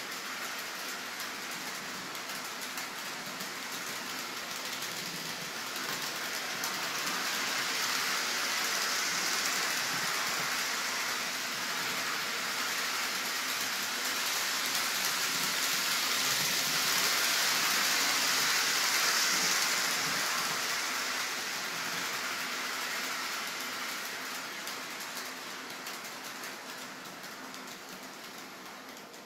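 HO scale Walthers Trainline model freight train running on an oval of roadbed track: a steady rushing hiss of the locomotive's motor and the wheels on the rails. It swells in the middle and fades toward the end.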